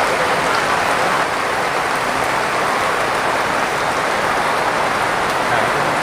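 Heavy rain falling steadily, a loud even hiss of rain on the ground and on the tarpaulin shelter.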